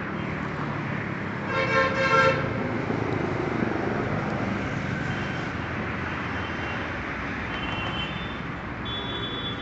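Steady road traffic noise, with a vehicle horn sounding briefly about one and a half seconds in.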